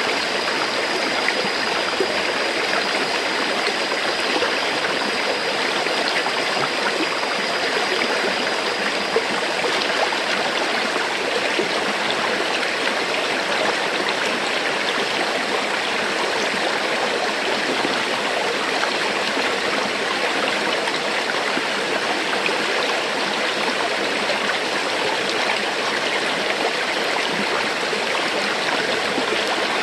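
River water flowing steadily over rocks, a continuous dense rushing with fine bubbling detail and no breaks.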